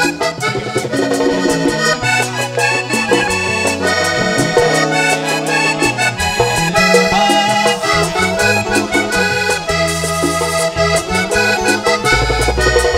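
Vallenato band playing an instrumental passage led by a diatonic button accordion, with bass, caja drum and hand percussion underneath.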